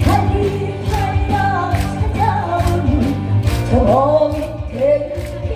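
Korean trot music with a steady bass beat and a lead melody that wavers on a held note about four seconds in.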